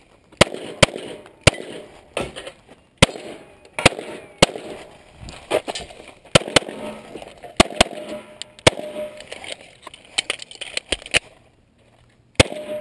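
A Glock 9mm pistol fired in a USPSA course of fire: a dozen or more shots at an uneven pace, some close together and some spaced out, with a quiet gap of about a second before a last shot near the end.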